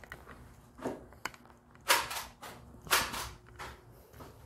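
Footsteps on a hard tile floor, sharp clicks about one a second, the two in the middle loudest.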